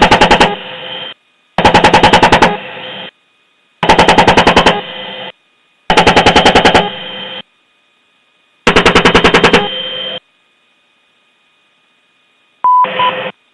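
AH-64 Apache's 30 mm chain gun firing five short bursts, each about a second of rapid rounds at roughly ten shots a second, spaced about two seconds apart. Near the end, a short radio transmission with a beep tone.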